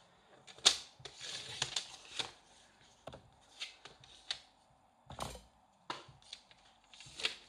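Cardstock being handled on a craft table: a sharp click, the loudest sound, just under a second in, short spells of paper rustling, then scattered taps and clicks.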